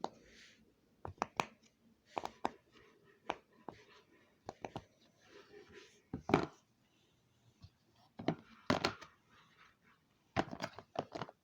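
Irregular sharp clicks and taps, some in quick clusters of two or three, with soft rustling between them, the loudest tap about six seconds in.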